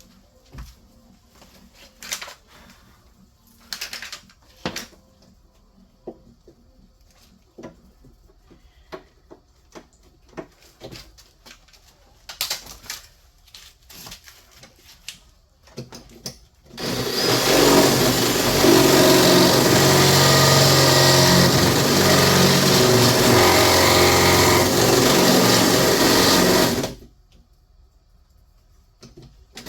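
Scattered clicks and knocks of handling, then an electric drill starts about halfway through and runs steadily for about ten seconds while boring a wiring hole, and cuts off suddenly.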